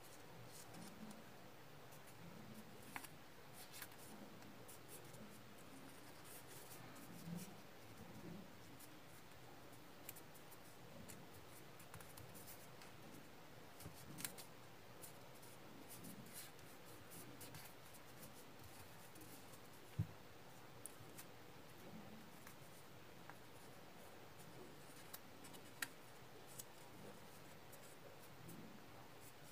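Faint rustling and crinkling of a small square of origami paper as it is folded and creased by hand, with scattered small clicks and one sharper tick about two-thirds of the way through.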